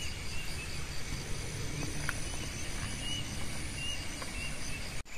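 Rural outdoor ambience: insects buzzing steadily in even, high-pitched pulses, a few short chirps, and a low rumble underneath. It cuts off abruptly just before the end.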